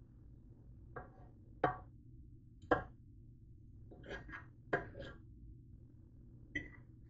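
Black plastic serving spoon knocking against a nonstick pot while scooping out ramen noodles: about eight sharp knocks, some in quick pairs, over a low steady hum.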